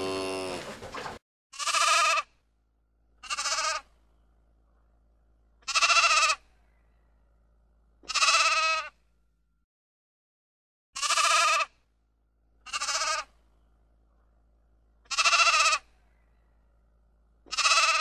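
A cow's moo ends about a second in, then a sheep bleats eight times, short bleats about every two seconds with quiet gaps between.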